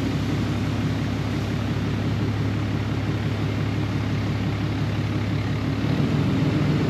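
Pickup truck's engine running steadily at low speed, heard from inside the cab as a constant low hum with a fast, even pulse beneath it.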